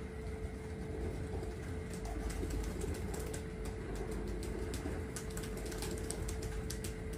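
Pigeons cooing under a steady hum. From about two seconds in, quick irregular clicks come in and grow denser.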